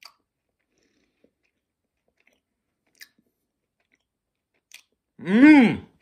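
A person chewing a jelly bean, with a few faint mouth clicks. About five seconds in comes a loud closed-mouth 'mmm' whose pitch rises and then falls as he tastes it.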